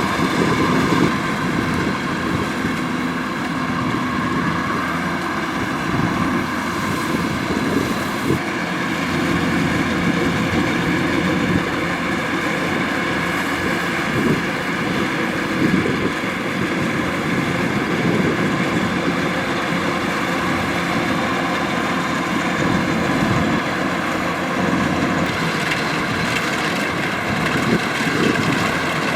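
Kubota DC-105X combine harvester running steadily under load while harvesting rice: a constant diesel engine drone with a whine of several steady tones from the machine's drives.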